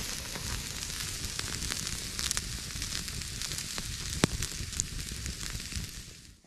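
Steak sizzling on a wire grill over an open wood campfire, the fire crackling steadily, with one sharp pop about four seconds in. The sound fades near the end.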